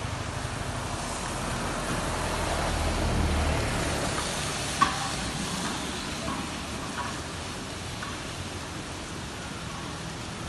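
Steady hiss of rain and fast-flowing floodwater, with a single sharp click about halfway through.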